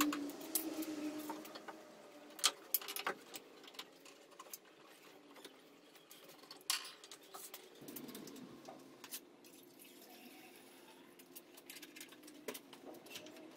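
Scattered light clicks and knocks from hand work on a van's stripped front end, a few sharper ones standing out, over a faint workshop hum.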